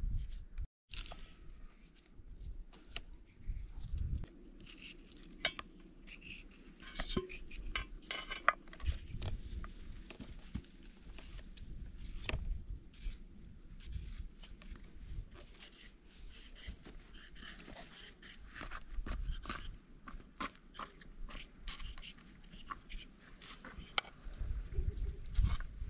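Raw potatoes being peeled with hand peelers and sliced into sticks with a knife: a long run of short, crisp scrapes and cuts through the firm potato flesh, with the odd clink against a steel bowl.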